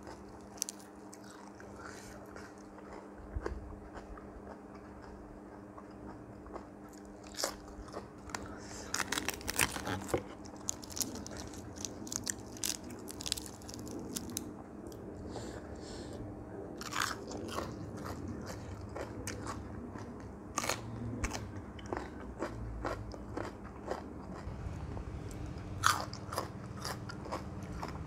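A person chewing crisp lettuce leaves close to the microphone, with irregular scattered crunches and the tearing of leaves by hand.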